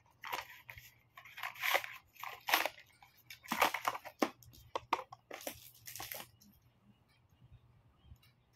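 Cardboard box and plastic wrapping crinkling and rustling as a selfie stick is pulled out of its packaging, in a run of short crackling bursts for about six seconds, then quieter.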